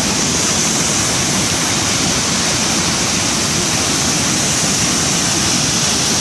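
Steady, loud rush of a small waterfall swollen by heavy rain and thawing snow, water pouring hard over the drop.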